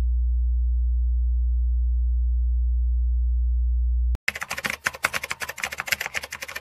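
A steady low sine tone that cuts off about four seconds in, followed by a rapid run of keyboard-typing clicks, a typing sound effect for on-screen text.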